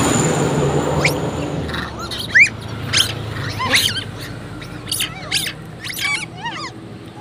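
Long-tailed macaques squealing during a scuffle: many short, high-pitched squeals that rise and fall in pitch, the loudest about two and a half seconds in. A low rumble fades away over the first two seconds.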